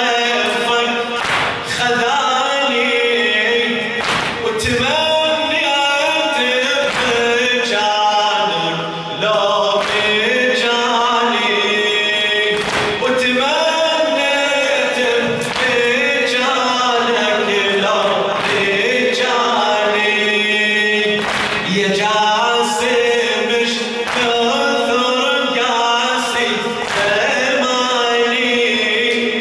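A male reciter chanting an Arabic Shia mourning lament (latmiya) into a microphone in long, wavering sung lines, with a crowd's voices joining in as a chorus. Sharp slaps come every second or two.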